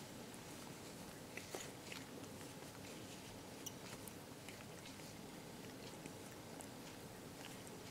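A cat grooming itself: faint, wet clicking of its tongue licking its paw and fur, scattered irregularly over a steady low hiss.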